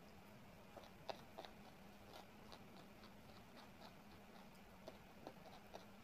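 Faint chewing and small wet mouth clicks of someone eating a meal, a few sharper clicks among them, over a low steady hum.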